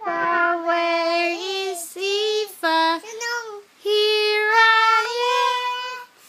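A young child singing in a high voice, without clear words: a long held note, several shorter notes, then another long held note near the end.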